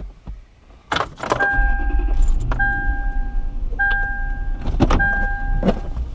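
A car engine cranks and starts about a second in, then idles with a steady low rumble. A seatbelt warning chime sounds on one pitch, repeating about once a second, while keys jingle and a few clicks come as the belt is pulled across.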